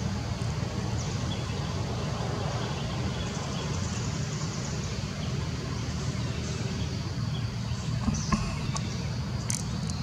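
Steady low rumble of outdoor background noise, with a faint high hiss and a few light clicks near the end.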